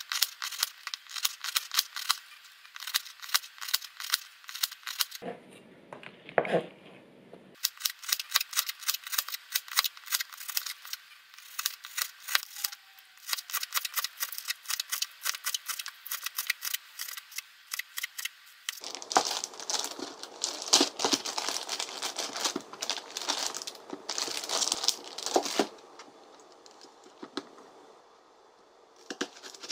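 Kitchen knife rapidly slicing a Korean green onion (daepa) on a plastic cutting board, in quick, even strokes. The chopping turns louder and fuller for several seconds about two-thirds through, then goes quieter near the end.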